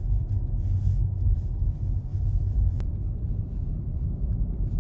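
Steady low road and tyre rumble inside a Tesla's cabin while driving, with no engine note.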